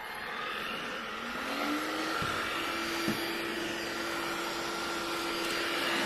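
Cordless stick vacuum cleaner running with its floor brush on carpet: its whine rises in pitch over the first two seconds or so, then holds steady. A couple of light knocks sound about two and three seconds in.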